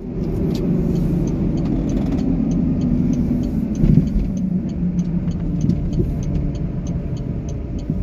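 Car cabin noise while driving on a slushy, snow-covered road: steady engine and tyre rumble. Over it the turn signal ticks evenly, about three times a second, for a left turn. The rumble swells briefly about four seconds in.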